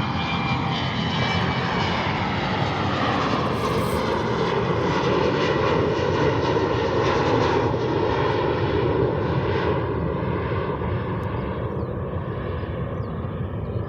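Jet airliner's engines at takeoff power as it climbs away: a loud, steady rumble with faint whining tones sliding down in pitch, easing off slightly near the end.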